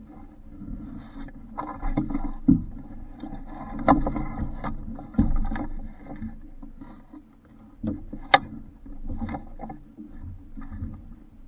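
Small sailboat on the water: water sloshing against the Alcort Super Sailfish's hull with irregular knocks and thumps, and a sharp click about eight seconds in.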